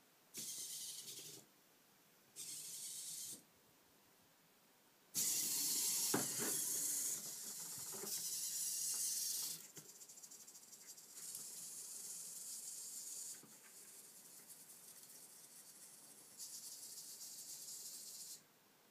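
Futaba RBT-1 humanoid robot's hobby servos whining in five separate high-pitched bursts as it moves, with quiet pauses between them. The longest and loudest burst, about five seconds in, has a few knocks as the robot goes down onto its hands before rising into a handstand.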